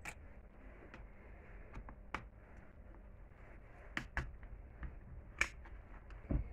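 A few sharp, separate clicks and taps, a second or two apart, from a screwdriver and small metal parts being worked on a chainsaw's cylinder.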